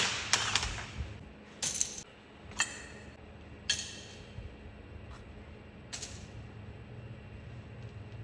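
Metal tools and engine parts being handled: five or six separate sharp metallic clinks, each with a brief ring, spread over the first six seconds, over a faint steady hum.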